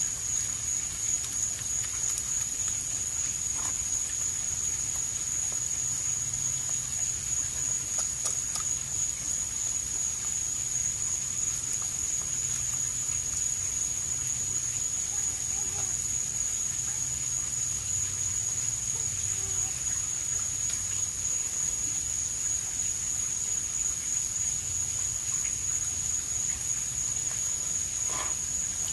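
A steady high-pitched drone holds throughout over a low hum, with a few faint clicks and short chirps.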